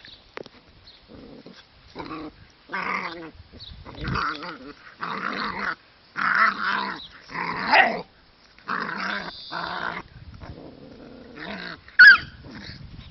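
Dogo Argentino puppies growling as they play-fight, a run of rough growls from about two seconds in, then a brief sharp high cry near the end, the loudest moment.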